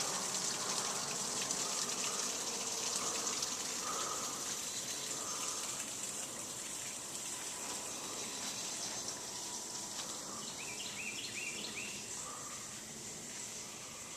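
Small woodland waterfall splashing in a steady rushing hiss that gradually gets quieter, with birds calling: a soft note repeated about once a second, and a quick run of rising chirps a little after ten seconds in.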